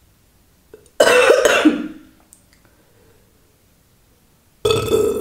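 A woman burping loudly twice: one long burp about a second in, and another near the end.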